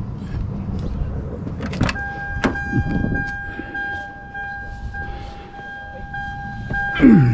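Car door clicks, then a steady electronic warning chime sounds. Near the end the engine starts and settles to idle.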